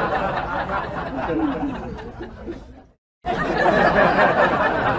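People laughing and chattering. The sound fades out, stops dead for a moment about three seconds in, then comes back suddenly at full level.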